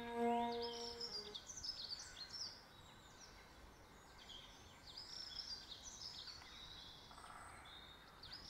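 A held music chord dies away about a second in, leaving birds chirping and twittering in many short, high calls that slide in pitch.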